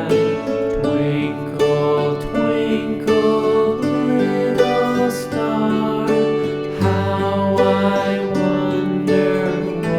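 Gentle instrumental background music with plucked string notes in a lullaby-like melody.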